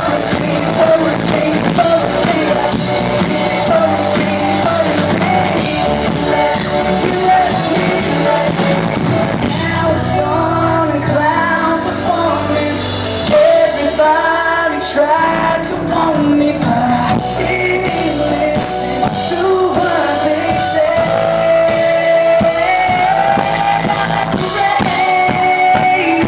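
Live pop-rock band playing in a club, with a lead singer, guitars and drums, recorded from the audience.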